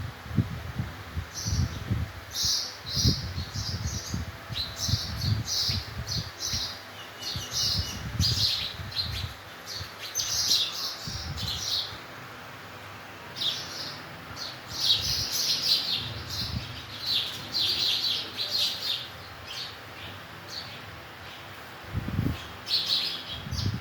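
Sparrows chirping in quick clusters of short, high notes, with a lull about halfway through and another near the end. Low rumbling bumps sound underneath.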